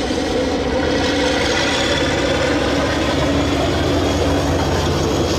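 1968 Mitsubishi-built DJ-class diesel-electric locomotive's engine running steadily as it passes close by hauling carriages, getting a little louder about a second in.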